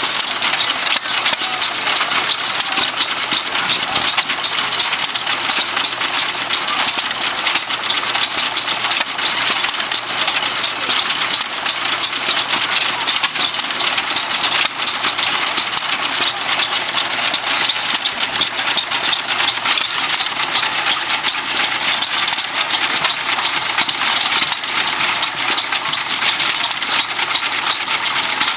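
Small hit-and-miss stationary gasoline engine running, a steady run of rapid clicks and exhaust pops, with other old engines running around it.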